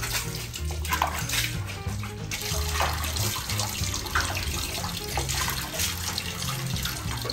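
Water splashing and sloshing in irregular bursts as a pet monkey swims, over background music with a steady low bass line.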